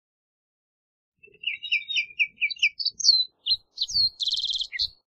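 Green-tailed towhee singing one song phrase, starting about a second in. It opens with a quick run of about six clear notes, goes on to higher slurred notes, and ends in a fast trill.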